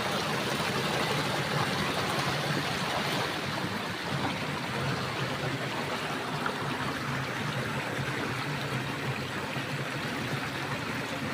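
Village stream flowing: a steady, even rush of running water.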